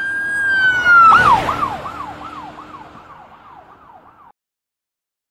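Logo-sting sound effect: a whistle-like tone held and sagging slightly. About a second in it breaks into a loud whoosh, then a falling tone repeats about three times a second like a fading echo. It cuts off abruptly about four seconds in.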